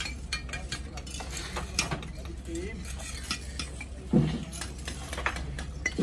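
Fired clay bricks clinking and knocking against each other as they are picked up and laid, in a scatter of irregular sharp clicks, with a louder thump about four seconds in.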